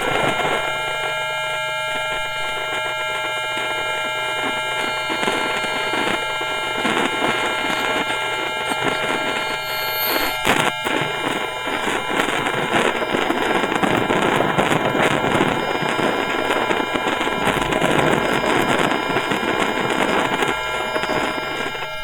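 Bombardier Mitrac IGBT VVVF traction inverter of a London Underground 2009 Tube Stock, picked up electromagnetically by a telephone pickup coil: a dense chord of steady whining tones over a crackling hiss that thickens in the second half, with one sharp click about ten seconds in.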